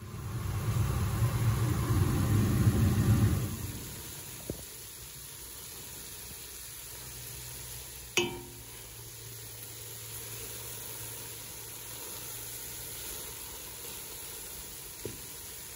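Onions and red peppers sizzling in a pot as a wooden spoon stirs them in with red lentils, with a sharp knock of the spoon against the pot about eight seconds in. A louder low rumble fills the first few seconds.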